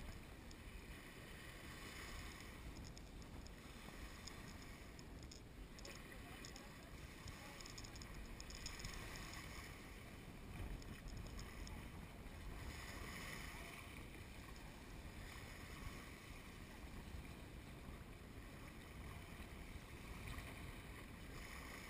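Small waves lapping at a sandy shoreline, swelling every few seconds, over low wind noise on the microphone.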